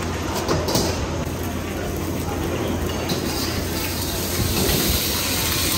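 Steady roar of a gas wok burner at a hawker stall, with a metal ladle clinking against the wok a few times early on and about three seconds in.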